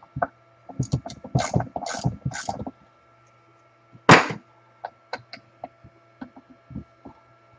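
Clicks and clatter of hand tools and metal parts as a Milwaukee portable band saw is being taken apart, with one loud knock about four seconds in and scattered small clicks after it. A faint steady hum sits underneath.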